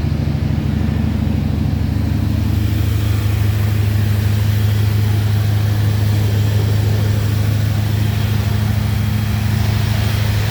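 1978 Chevrolet K10 pickup's engine running steadily at its cold-start fast idle while it warms up, the electric choke almost fully open.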